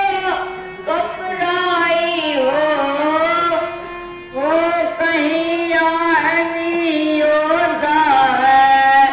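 A solo voice sings long, wavering, ornamented notes of a devotional lament, over a steady held drone tone. The singing breaks briefly about four seconds in, then resumes.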